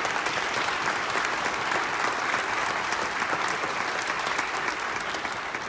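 Audience applause: steady, dense clapping from many hands.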